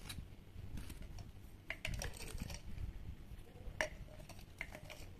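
Light clinks and taps of a glass sugar jar and its spoon as sugar is spooned out, a few separate clicks with a sharper one a little before four seconds in.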